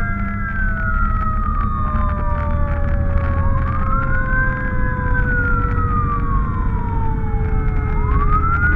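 Fire truck siren wailing, its pitch climbing and then sliding slowly down about every four and a half seconds, over the steady low rumble of the truck's engine heard from inside the cab.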